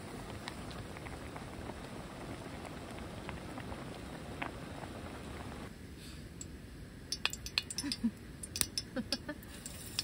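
A pot of doenjang jjigae bubbling at a boil over a portable gas stove burner, a steady hiss. Then, in the last few seconds, metal tongs clinking sharply and repeatedly against an aluminium camping frying pan.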